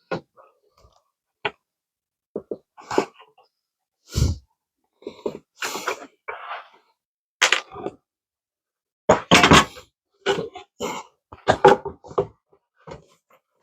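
Hand tools working wood: irregular knocks, taps and short scraping rasps, with a heavier thump about four seconds in.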